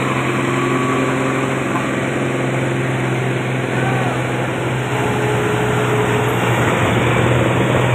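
Heavy diesel trucks driving past in a line, their engines making a steady low drone over tyre and road noise.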